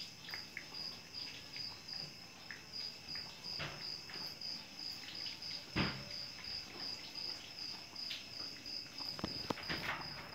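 Crickets chirping steadily, a high note pulsing about three times a second. A few soft clicks and knocks come over it, the loudest about six seconds in.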